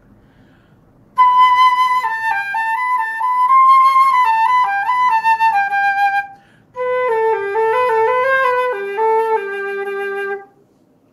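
Concert flute played solo: two short melodic phrases, the second lower in pitch, with a brief breath between them, demonstrating how the tone should feel with the lips acting as the instrument's reed.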